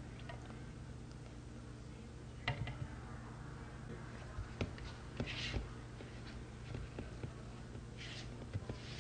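Faint soft sounds of flour and melted butter being squeezed and mixed by hand in a plastic bowl, with a few light knocks and brief rustling over a low steady hum.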